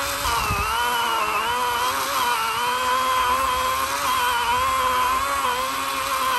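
80-volt battery chainsaw running under load as its chain cuts into a rotten log: a steady electric whine whose pitch sags and recovers as the cut loads the motor, with a low thump about half a second in.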